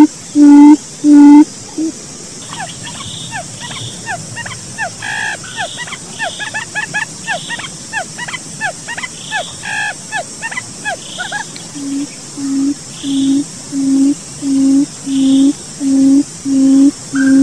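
Lure recording of a puyuh hutan (forest quail) calling: a run of loud, evenly spaced low hoots, about one and a half a second, that breaks off just after the start. Then comes a quicker series of fainter, falling chirps for about ten seconds. About twelve seconds in the hoots return, growing louder.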